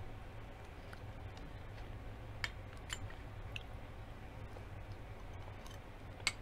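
Quiet eating: chewing, with a few sharp clicks of a metal spoon against a small glass bowl, the loudest near the end, over a steady low hum.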